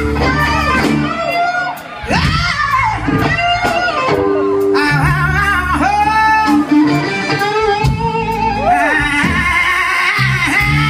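Live blues-rock band playing: electric guitar with notes that bend up and down, over a steady bass line and cymbal ticks.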